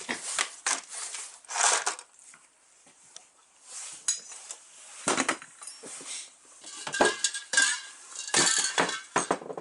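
Hard objects clinking and clattering together in a series of irregular sharp knocks and clinks, some ringing briefly.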